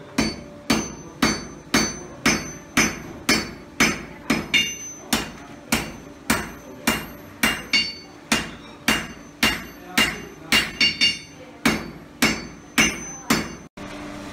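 Blacksmith's hand hammer striking red-hot iron on an anvil in a steady rhythm of about two blows a second, each blow with a short metallic ring.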